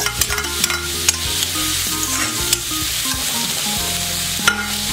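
Chopped onions sizzling in hot oil in an iron kadai, stirred with a steel spoon that scrapes and clicks against the pan, the sharpest click about four and a half seconds in.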